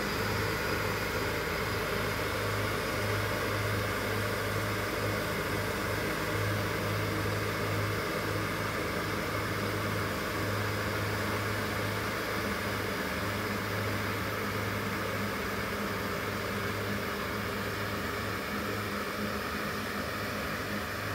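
Rail grinding machine grinding newly laid rails, sparks flying from its grinding stones: a steady grinding noise over a low hum, easing slightly near the end as it moves off. The grinding finishes the new rails for a longer life and a quieter ride.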